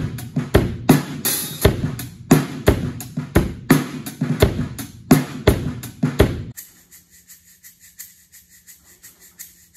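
Acoustic drum kit played: hits of kick, snare and cymbals on a 28-inch kick, Ludwig Black Beauty snare and Zildjian K cymbals, about two to three strokes a second, cutting off abruptly about six and a half seconds in. A faint low hum follows.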